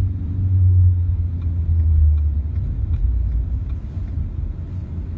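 Low in-cabin rumble of a Ford Fusion driving along: road and drivetrain noise heard from inside the car. It is heaviest for the first couple of seconds, then eases off.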